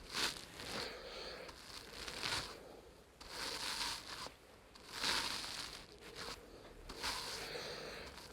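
Soft rustling and crinkling in about six short bursts as the patient is handled and shifted on the treatment table.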